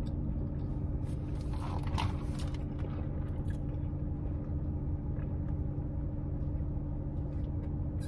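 Steady low hum of a car idling, heard from inside the cabin. A few faint brief rustles and clicks about two seconds in, from handling a plastic drink cup.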